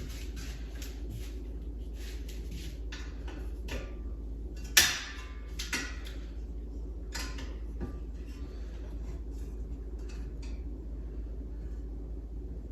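Scattered metal clicks and clinks of screwdrivers and driver bits being handled, with one sharper clack a little under five seconds in.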